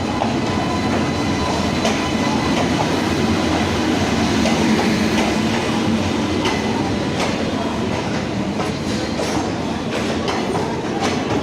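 Indian Railways express passenger train pulling into a station, its coaches rolling past with a steady rumble and wheels clicking over the rail joints, the clicks coming more often in the second half.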